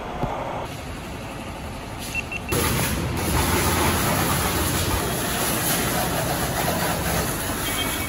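Pressure washer spraying a motorcycle: a loud, steady hiss of the water jet that starts abruptly about two and a half seconds in, after a quieter mechanical running sound while the bike lift is raised.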